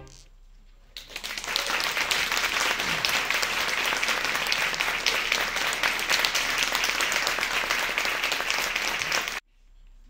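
Audience applauding, starting about a second in with many hands clapping at once, then cutting off suddenly near the end.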